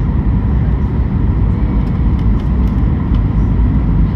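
Jet airliner engines and rushing air making a loud, steady, low rumble as the plane lands, with a faint steady tone above it.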